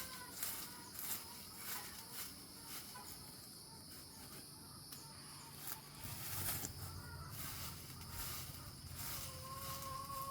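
Outdoor garden ambience: a steady high insect buzz, scattered light knocks and scrapes, and a held bird call near the end.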